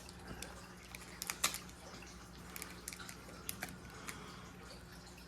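Faint scattered clicks and light taps from handling a Pokémon card box and its booster packs, over a low steady hum.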